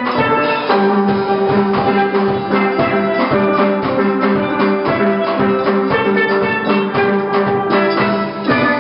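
Steel band playing a lively tune on steel pans, with many quick struck ringing notes over a steady beat.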